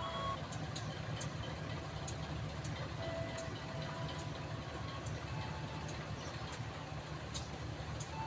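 Diesel-electric locomotive engine running at idle: a steady low rumble, with faint short tones and light clicks over it.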